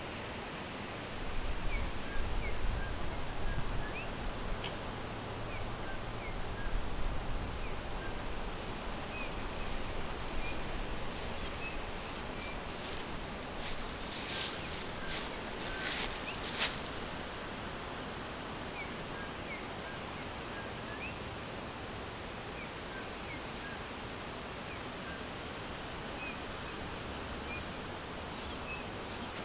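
Small birds giving short, high chirps scattered throughout, over a steady background hiss. A low rumble runs through the first third, and a few brief rustling bursts come about halfway through.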